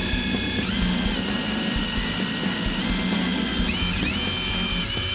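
Cordless DeWalt brushless impact driver spinning a drill bit through the car's sheet metal to open up the speaker mounting holes. It runs steadily, its motor whine shifting up and down in pitch a few times.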